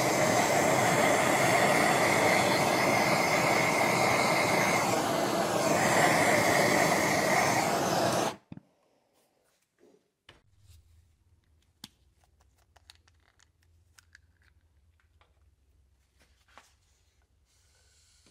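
Handheld propane torch burning with a steady loud hiss and a whistling tone as it scorches a wooden hatchet handle; it cuts off suddenly about eight seconds in. Afterwards, a few faint clicks and knocks.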